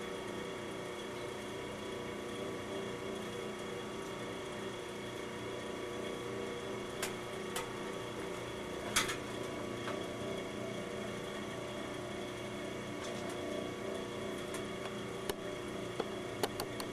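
A steady hum made of several layered tones, as from a motor or electrical equipment, with a few faint light clicks and taps scattered through.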